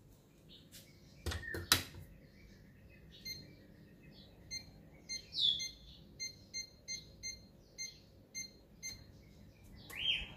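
A built-in oven's door shuts with a couple of sharp knocks, then its touch-control panel gives a string of short beeps, one per button press, as the cooking timer is stepped up.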